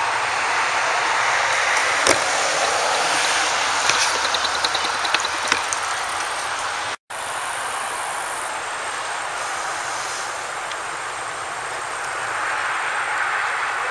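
Steady road traffic noise, a constant rushing haze that swells slightly near the end. A few short high clicks come between about two and five and a half seconds in, and the sound cuts out for an instant about halfway through.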